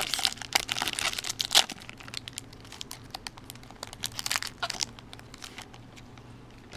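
Foil wrapper of a baseball card pack being torn open and crinkled, densest in the first two seconds, then sparser crackles and ticks as the stack of cards is worked out of the wrapper.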